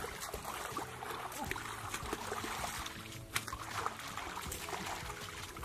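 Hands sloshing and splashing in shallow muddy pond water while groping through the mud for fish, in small irregular splashes, with one sharper slap a little after three seconds in.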